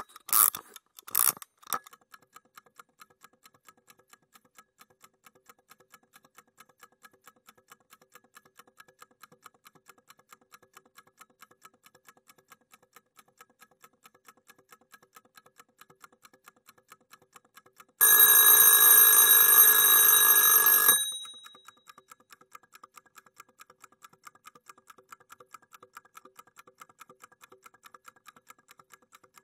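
Mechanical kitchen alarm clock: a few loud clicks at the start, then steady fast ticking, broken about 18 s in by its bell ringing loudly for about three seconds before cutting off, with the ticking carrying on afterwards.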